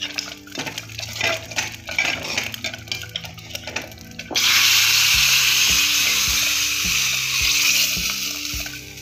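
A steel ladle scraping and knocking around an aluminium pot of saag. About four seconds in, a loud, steady sizzle starts suddenly as saag meets the hot ghee left in the tempering pan, and it fades out near the end.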